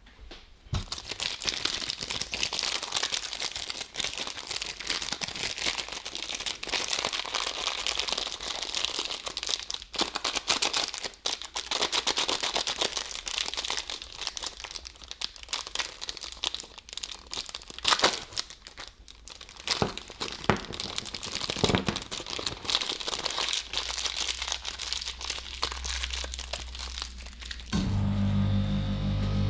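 Plastic packaging crinkling and tearing close to the microphone, with scattered sharp crackles. Music comes in near the end.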